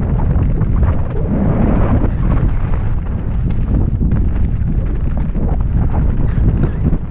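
Mountain bike descending over loose rock: wind buffeting the helmet-mounted microphone, with the tyres crunching over stones and the bike clattering in a continuous run of small knocks.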